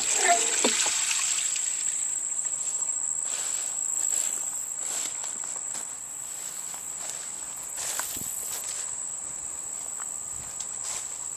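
Insects trilling without a break in one high, steady note, with occasional faint clicks and rustles.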